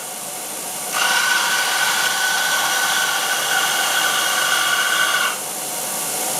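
Shop-built Delta 1x42 belt grinder clone running on a three-phase motor through a VFD: a steady hiss with a high whine. The whine cuts out for about a second at the start and again about five seconds in.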